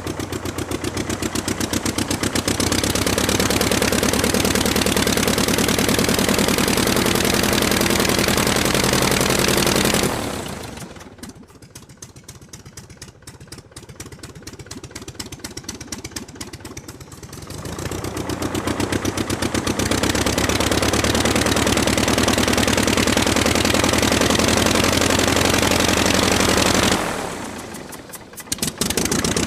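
Aircraft piston engine running on the ground, opened up to high power, throttled back to a low idle about ten seconds in, run up again about eight seconds later, then briefly eased back near the end before picking up again.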